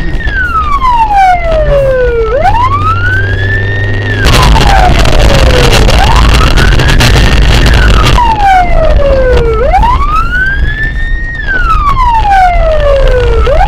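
Police car siren sounding a slow wail, its pitch rising and falling about once every four seconds, over a steady low vehicle rumble. A loud rushing noise joins it from about four to eight seconds in.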